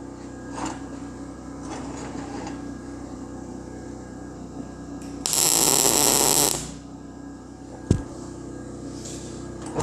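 Welding arc crackling for about a second, a short tack weld struck on the corner of quarter-inch steel plate. A single sharp click follows, over a steady low hum.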